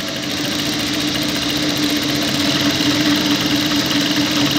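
Industrial lockstitch sewing machine running steadily at speed, a continuous hum with fast stitching, sewing net fabric through a P952 gathering foot that ruffles it as it feeds.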